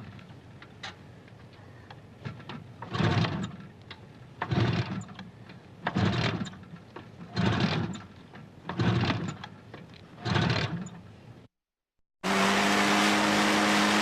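Motorcycle engine blipped repeatedly, six short bursts of throttle about every one and a half seconds with a low idle between. After a brief dead silence near the end, a different motorcycle engine runs steadily and loudly.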